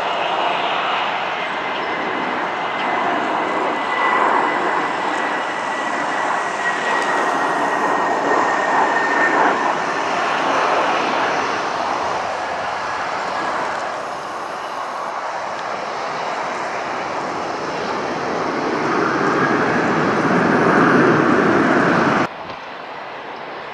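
Jet engines of an Airbus A321 airliner on final approach and landing: a steady loud rush with a faint whistle that slowly falls in pitch. The rush swells late on. Near the end it cuts suddenly to quieter engine noise.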